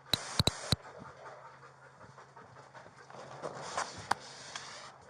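Police K9 dog panting, with a quick run of sharp clicks or knocks in the first second.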